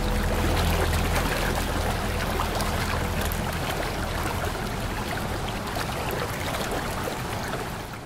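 Waterfall: a steady rush of falling water, with low droning tones underneath that die away over the first few seconds. The whole sound fades out near the end.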